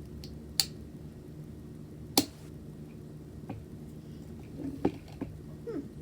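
Sharp clicks from handling a new tripod: two loud snaps, about half a second in and about two seconds in, then a few lighter clicks and a brief falling squeak near the end.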